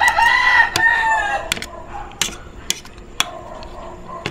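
A rooster crowing: one long call that ends about a second and a half in. Then a few sharp clinks of a metal spoon and fork against a ceramic plate.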